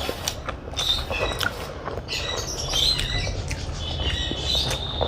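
Close-miked chewing and wet mouth smacks of a person eating a rice meal, with many small clicks and crackles.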